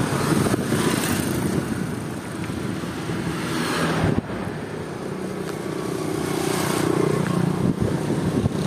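Road traffic passing over the bridge: a steady mix of motor vehicle engines and tyre noise, with a brief break about four seconds in.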